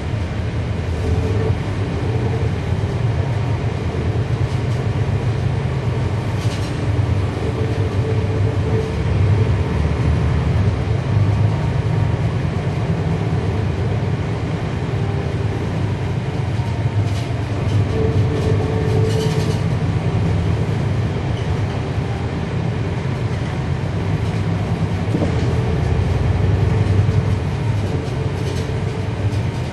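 Cummins ISL9 diesel engine of a 2011 NABI 40-SFW transit bus running under way, heard from on board: a steady low drone that swells and eases in level, with a few brief rattles. The ZF Ecolife automatic transmission is nearly silent.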